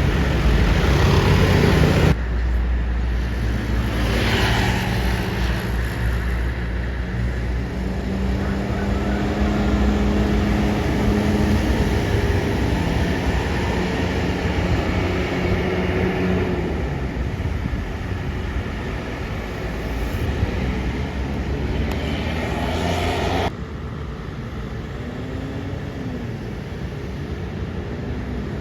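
Large tour buses running past with a low engine drone and road traffic noise. The sound changes abruptly twice, about two seconds in and near the end.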